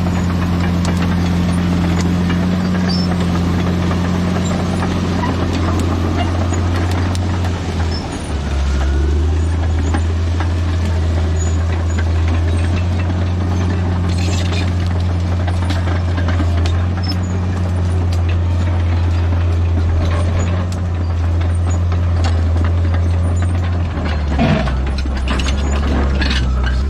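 Bulldozer's diesel engine running steadily at working revs, its low note shifting down about eight seconds in, with a few short metallic squeals and clanks, most clearly near the end.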